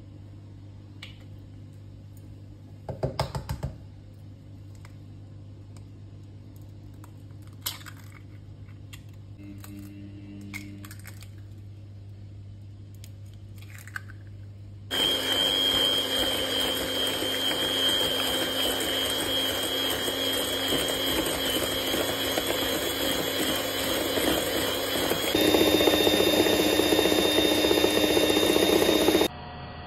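Electric hand mixer with wire beaters running in a stainless steel bowl, creaming butter, sugar and egg into batter. It starts about halfway through with a steady motor whine and whirring beaters, steps up louder and higher about 25 seconds in, then cuts off just before the end. Before it starts there is only a low hum and a few light clicks.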